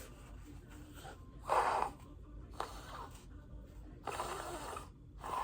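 A person blowing their nose: separate bursts of air forced through the nose, a loud one about a second and a half in, two short ones soon after, a longer one about four seconds in, and another near the end.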